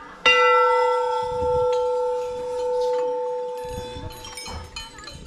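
Metal temple bell struck once, giving a long ringing tone that fades slowly. Fainter clinks of other bells come near the end.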